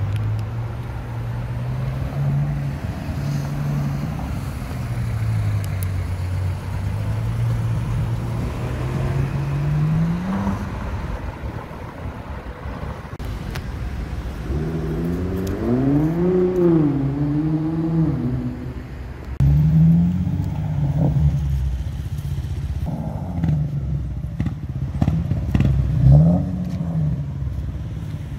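Sports car engine pulling away and being revved in city traffic: a low steady note that rises a third of the way in, then a run of revs rising and falling, and several short blips of the throttle near the end, over the hum of street traffic.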